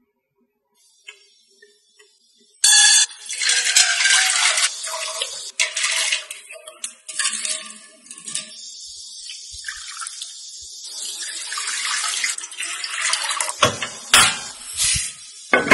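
Water pouring in a steady stream into a stone-coated nonstick pan, starting abruptly a few seconds in and easing off about halfway. Near the end come a few sharp clicks as a portable gas stove is switched on.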